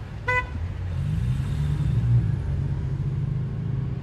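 A car horn gives one short toot just after the start. Then the car's engine picks up, its low hum rising in pitch and growing louder for about a second, and settles into a steady rumble heard from inside the cabin.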